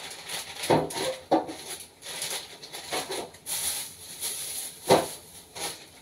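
Food containers and bags being handled on a kitchen counter while a fridge is being restocked: scattered light knocks and rustling, with one sharper knock about five seconds in.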